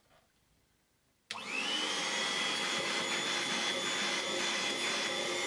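Vintage Moulinex 250 hand-held mains vacuum cleaner switched on about a second in: its 250-watt motor spins up with a quickly rising whine, then runs steadily at a high pitch.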